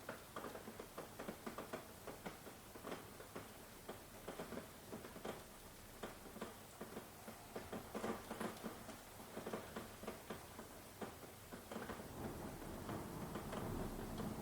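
Rain falling, with many irregular drops pattering and tapping close by. A low rumble swells near the end.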